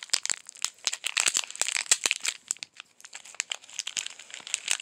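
Small plastic candy packet crinkling as it is handled and worked open, a dense run of sharp crackles with a brief lull a little past the middle.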